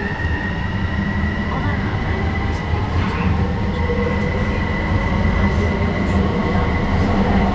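SkyTrain car pulling away from a station and picking up speed: a steady high whine from its linear induction motors, rising slightly in pitch, over a low running rumble that grows louder.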